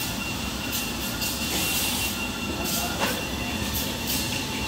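Tissue paper converting line running: a steady mechanical rumble and hiss of rollers and drives, with a thin steady high whine and a brief knock about three seconds in.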